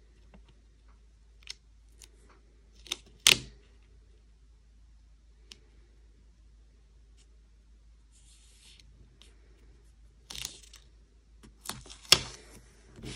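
Sticker paper being handled and pressed onto a planner page: scattered short paper crackles and taps, the sharpest a little over three seconds in and about twelve seconds in, with a soft rustle of the sticker around eight seconds in.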